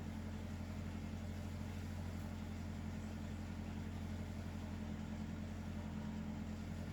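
Steady low mechanical hum that does not change in pitch or loudness.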